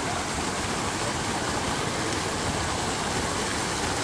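Fountain water rushing and splashing in a steady, unbroken wash.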